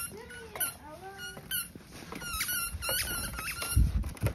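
A squeaky toy ball being chomped repeatedly in an English Springer Spaniel's mouth, making a series of short, high squeaks. There are a couple of low thumps near the end.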